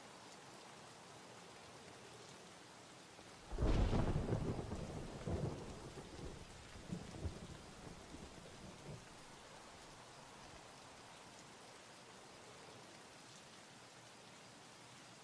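A sleeping person shifting position in bed: a sudden thump and rustle of bedding and mattress about three and a half seconds in, followed by smaller bumps and rustles dying away over the next five seconds, over a steady faint hiss.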